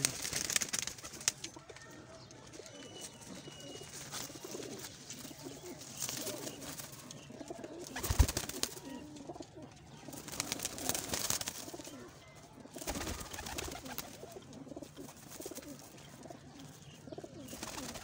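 Domestic pigeons cooing softly and continuously. There is rustling throughout and a sharp thump about eight seconds in, with a smaller one near thirteen seconds.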